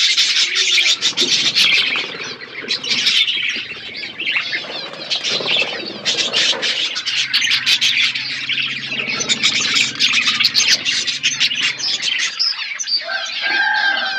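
A flock of budgerigars chattering and chirping without pause, dense and high-pitched, with many short sharp clicks mixed in. A lower, held call starts near the end.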